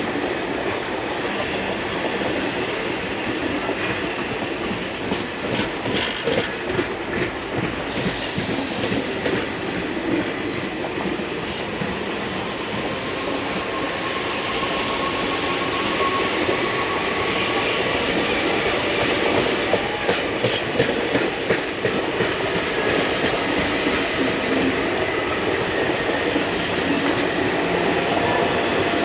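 Train running steadily on the track, a continuous rumble with groups of wheel clicks over rail joints twice.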